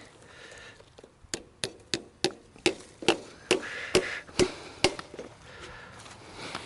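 Hammer blows, about a dozen in quick succession at roughly three a second, stopping about five seconds in, from work fixing barbed wire to wooden fence posts.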